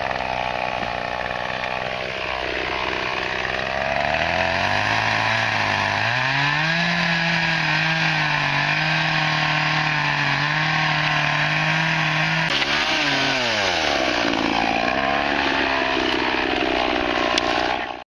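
Gas chainsaw running, revved up to full throttle about six seconds in and held steady for about six seconds, then dropping back toward a lower speed. The sound cuts off suddenly at the end.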